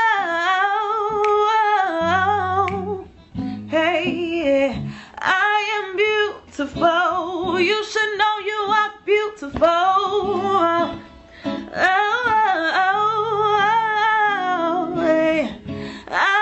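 A woman singing a slow melodic passage of long, wavering held notes without clear words, over guitar accompaniment.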